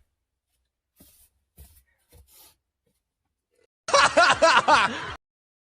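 A burst of laughter lasting about a second, starting about four seconds in, after a few faint short sounds.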